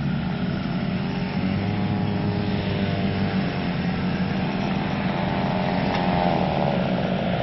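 Off-road 4x4 engines running steadily, a low hum with a faint wavering higher whine above it.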